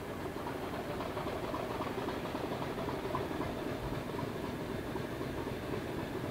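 Diesel locomotive engines running steadily, with one locomotive standing and another drawing slowly closer on the next track.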